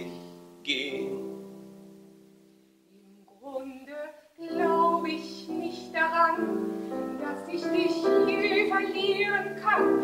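A piano chord rings and fades away. About three and a half seconds in, a woman starts singing, and the piano accompaniment comes in under her voice soon after.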